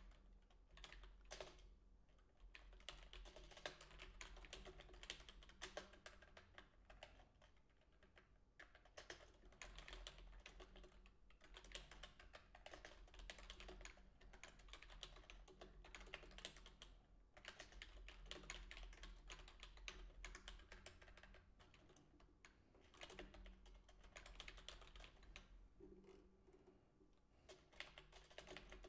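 Faint computer keyboard typing in quick runs of keystrokes broken by short pauses.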